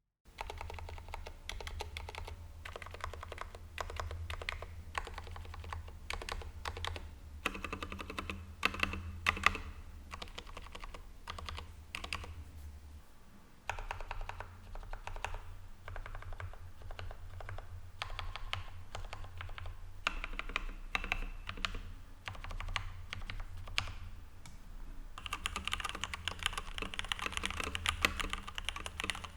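Continuous typing on a Leopold 750R mechanical keyboard fitted with Cherry MX Red linear switches, lubed with Krytox 205g0 and filmed, with lubed and tuned stabilizers and added foam under the PCB. The keys run as a steady stream of clicks.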